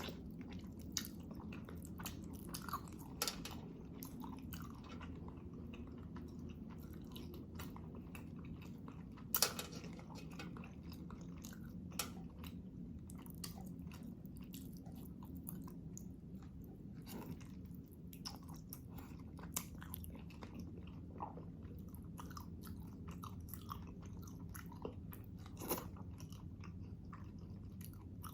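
Close-miked chewing and mouth sounds of a person eating beef kaldereta, with scattered wet clicks and smacks; the sharpest comes about nine and a half seconds in. A steady low hum runs underneath.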